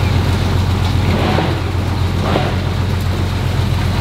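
Trawler's engine idling with a steady low hum, under a rushing wash of water churning alongside the hull.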